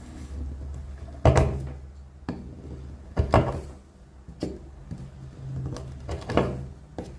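Hard wooden knocks and clunks during hand woodworking: three loud ones about two to three seconds apart, with smaller clicks between them, over a steady low hum.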